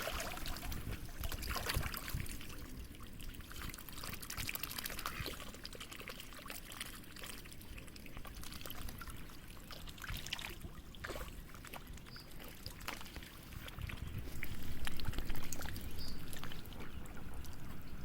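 Water trickling and lapping with many small crackling clicks, growing louder with a low rumble about fourteen seconds in.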